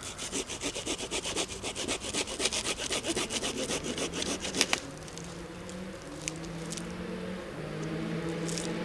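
Small hand saw cutting into a solid fallen pine branch, with quick even strokes about five a second that stop about halfway through. After that a low steady hum is left, with a few faint clicks.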